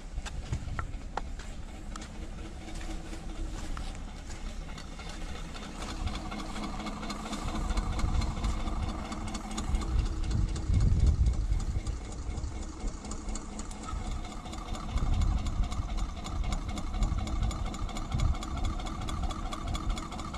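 A steady machine hum runs throughout, with louder low rumbles about halfway through and again later.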